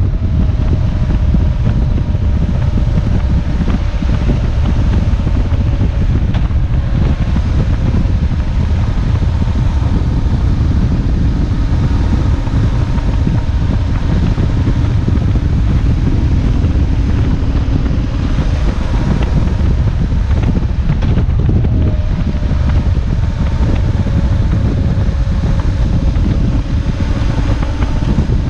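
BMW R1150GS boxer-twin motorcycle riding at steady speed, buried under heavy wind buffeting on the microphone. Its faint engine note drifts slowly down and back up in pitch.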